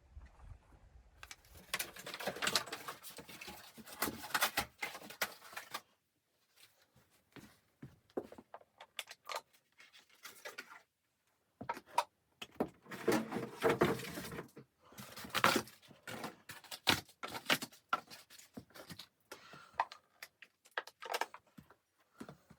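Close handling noise: rustling, clicks and small knocks in irregular bursts, pausing briefly about six seconds in and again about eleven seconds in.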